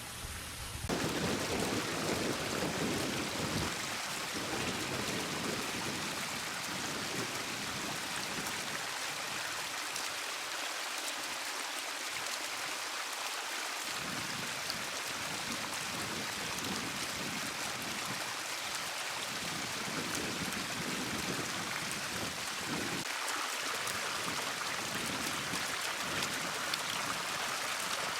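Steady rush of water splashing down a pondless waterfall, which comes up louder about a second in.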